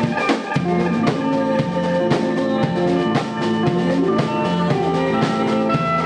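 A band playing a song: a drum kit keeping a steady beat, with a bass line and melodic instruments over it.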